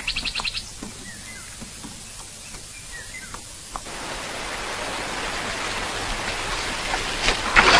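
Small birds chirping faintly, with a quick trill at the start. From about four seconds in, a steady rush of flowing water takes over and slowly grows louder.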